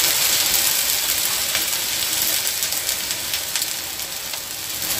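Broccoli and garlic sizzling in hot oil in a stainless steel wok, a steady frying hiss with a few faint ticks.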